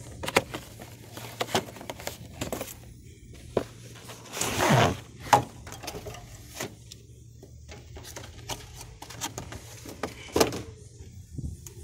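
Cardboard air-filter box being opened and the new panel filter pulled out and handled: scattered clicks and rustles, with a longer rustle a little over four seconds in.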